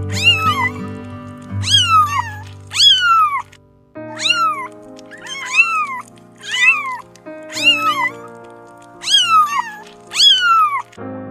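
Background music with short, cat-like meowing calls repeated about once a second, each rising then falling in pitch.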